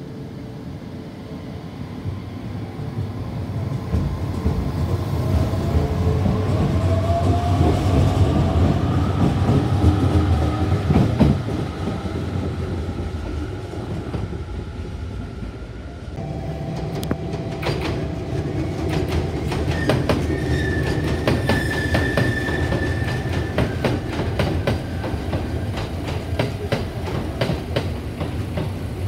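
JR Kyushu 815 series electric train moving off along a station platform: its motor whine rises slowly in pitch as it gathers speed, over the rumble of its wheels. About halfway through the sound changes abruptly to steady tones and rapid clacking of wheels over rail joints.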